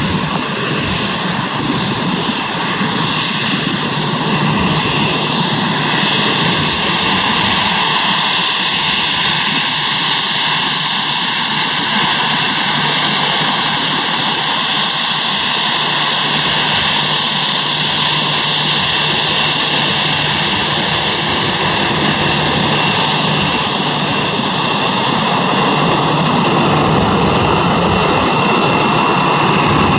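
Boeing 737-800's CFM56-7B turbofan engines at taxi power as the airliner taxis close by: a steady high whine over a hiss, growing louder over the first few seconds and then holding.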